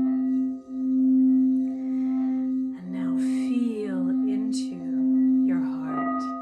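Crystal singing bowl sounding one sustained low tone with faint higher overtones, pulsing in a slow regular swell about once a second. From about halfway through, a wordless voice glides up and down in pitch over the ringing bowl.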